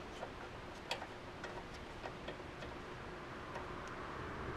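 Faint, irregular small metallic clicks and ticks from hand-fitting the brake line bolt and hose to a front brake caliper.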